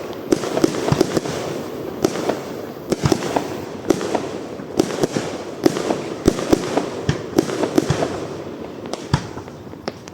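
Fireworks display: aerial shells bursting in a rapid, irregular series of sharp bangs over a continuous rumble, the barrage thinning out and fading near the end.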